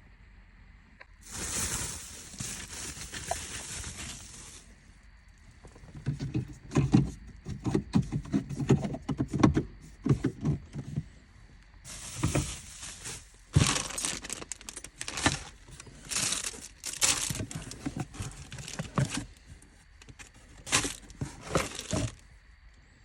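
Hands handling wiring and plastic parts: irregular rustling and crinkling with many small clicks and knocks, plus a longer hissing rustle near the start.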